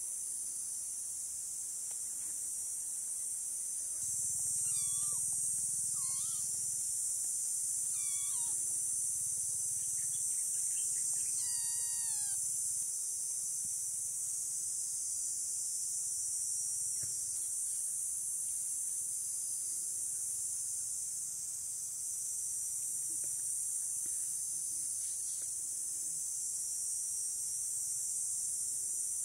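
A steady high-pitched insect drone, crickets or cicadas, runs throughout. Over it a kitten mews several times, short calls that fall in pitch, between about four and thirteen seconds in.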